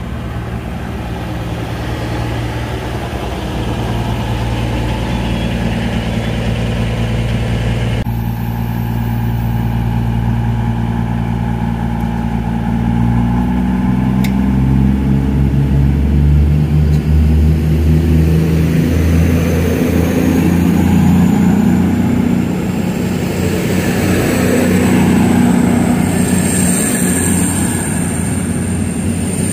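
Class 221 Super Voyager diesel-electric train's underfloor diesel engines idling steadily, then revving up about halfway through as the train starts to move off. A thin electric whine rises in pitch and grows louder near the end.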